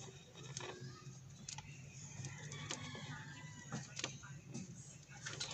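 Faint scratching and small clicks of a thin metal pick scraping rust off a wireless earbud's charging contacts, over a low steady hum.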